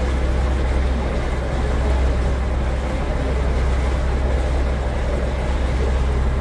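Tour boat's engine running with a steady low drone, under an even rushing hiss.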